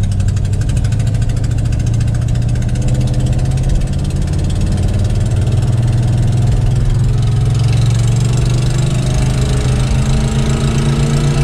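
1969 Dodge Dart's engine running under load, heard from inside the cabin. Its pitch climbs slowly and steadily as the car gains speed.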